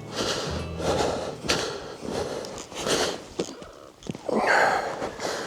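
A person breathing hard, in irregular noisy breaths about a second apart.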